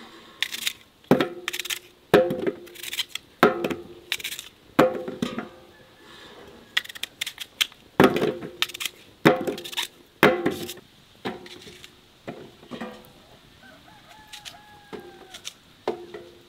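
Kitchen work with apples: a dozen or so sharp knocks at irregular intervals about a second apart, each leaving a short ring. A chicken calls briefly near the end.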